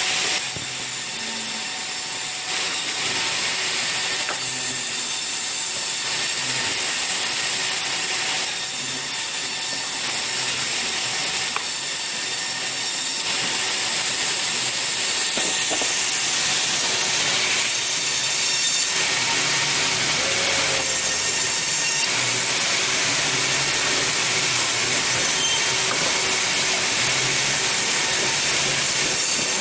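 Sawmill machinery running, with saws cutting wood: a steady, loud, hissing mechanical noise that shifts in character every few seconds.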